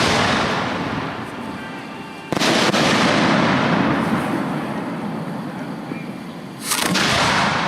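Display fireworks going off: the tail of one boom fading, then two sharp booms about two and four-fifths of a second and six and a half seconds in, each followed by a long rolling echo that dies away over several seconds.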